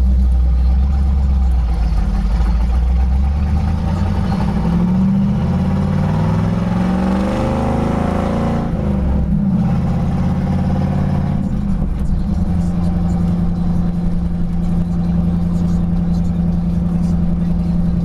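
Ford 460 big-block V8 in an '85 F-250, straight-piped true dual exhaust with no mufflers or cats, run through 5-inch stacks, heard from inside the cab. It pulls with rising pitch, dips about nine seconds in, climbs again, then settles to a steady cruise.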